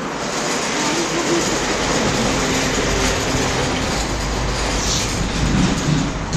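A train rumbling past: a steady rushing rumble that grows a little louder after about a second, with the deep rumble strengthening in the second half.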